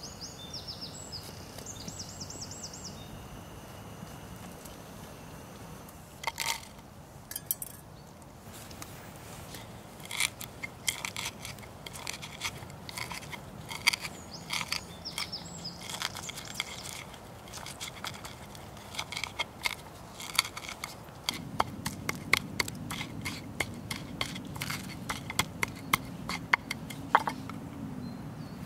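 A bird chirps a few times, then a long irregular run of sharp clicks and taps from something being handled. A steady low hum comes in about two-thirds of the way through.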